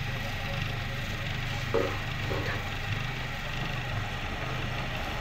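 Motor-driven potter's wheel running with a steady low hum, with a brief knock about two seconds in.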